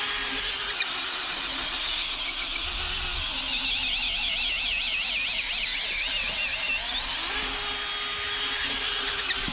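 Power drill running steadily under load, driving an old auger bit into a timber as the bit's screw tip pulls it into the wood, with a wavering high whine.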